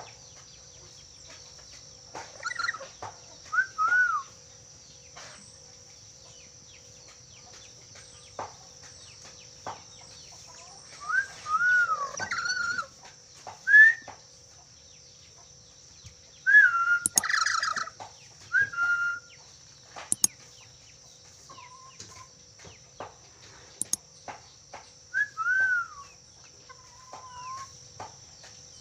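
Black-capped lory whistling: short, clear whistled notes that slide up and down, in scattered bouts of a few notes, with one harsher, noisier call about seventeen seconds in. A faint steady high tone runs underneath.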